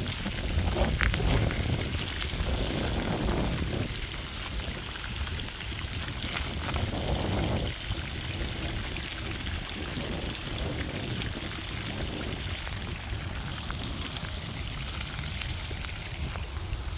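Garden fountain's thin water jets splashing back into a small round pond, a steady patter of falling water, with wind rumbling on the microphone.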